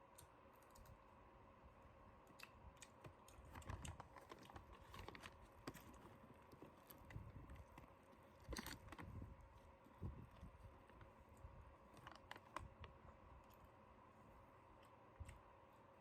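Faint, scattered crunches and clicks of fried chicken being eaten and handled, irregular and most frequent through the middle of the stretch.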